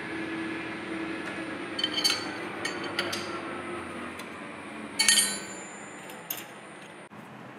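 Steel combination wrench clinking against a bolt and a metal fixture on a lathe chuck as the bolt is loosened: a few sharp metal clinks, the loudest about five seconds in.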